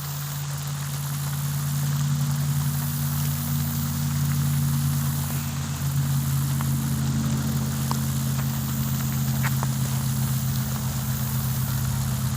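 An engine running steadily with a low, even hum that grows a little louder over the first couple of seconds, with a few faint ticks about nine seconds in.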